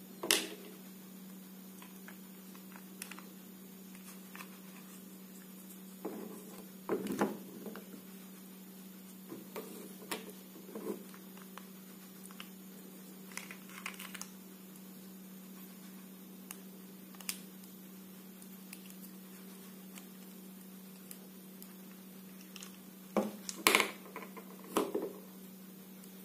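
Hard plastic parts of a take-apart toy construction truck clicking, knocking and scraping as they are handled, pulled apart and fitted together. There are scattered small clicks, a sharp knock at the very start and a cluster of louder knocks near the end.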